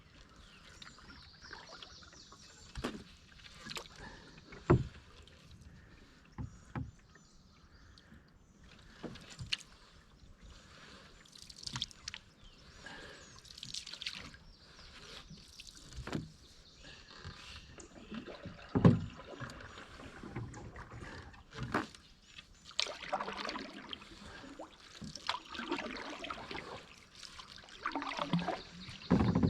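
Canoe paddling on calm water: paddle strokes and water swishing, with sharp knocks every few seconds, the loudest about five seconds in and again near nineteen seconds.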